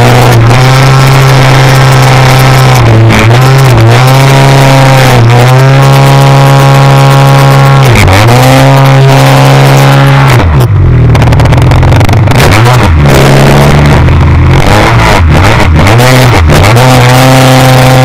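RC aerobatic biplane's engine running at speed, recorded on board and very loud. Its pitch dips and recovers several times with throttle changes, dropping deepest about eight seconds in. From about ten seconds in it turns rough and wavering for several seconds before steadying again near the end.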